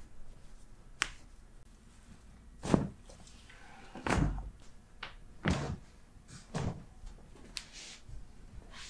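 A series of sharp pops and dull thuds from chiropractic adjustments: one thin crisp click about a second in, then several heavier knocks and cracks a second or so apart, the loudest near the three-second mark.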